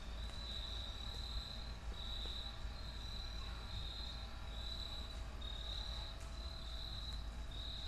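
Insects singing: a steady, high-pitched chorus that swells and dips about once a second.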